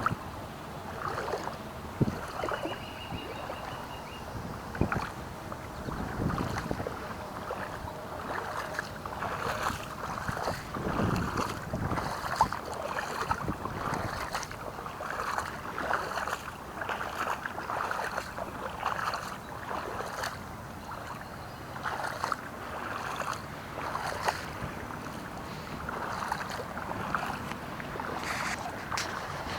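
Floodwater sloshing and splashing in irregular bursts, every half second to a second.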